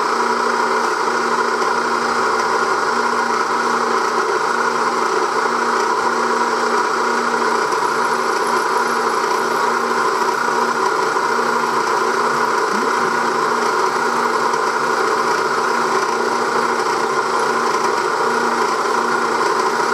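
Milling machine running with an end mill cutting a slot in a metal bar: a steady, even machine noise with a faint constant hum.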